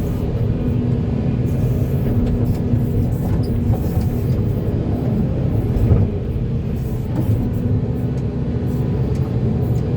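Diesel engine of a Volvo EC480D excavator running steadily under work, with a single thump about six seconds in.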